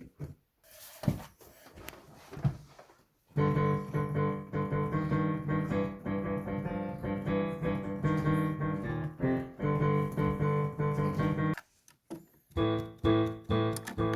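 Yamaha Clavinova CLP-230 digital piano being played: a few soft knocks at first, then about eight seconds of held chords and notes, a brief pause, and a run of repeated notes near the end.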